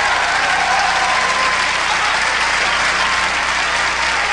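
Studio audience applauding steadily, welcoming a singer onto the stage.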